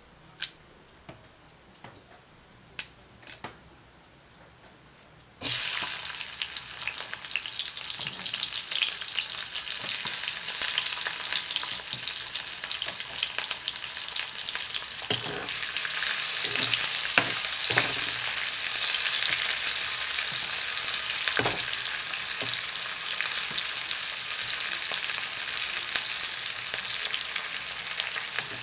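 Hot oil in a kadai sizzling loudly and steadily as sliced onion, garlic and dried red chillies fry in it; the sizzle starts suddenly about five seconds in, when they hit the oil. Before that there are only a few light clicks, and a few sharp knocks sound through the frying.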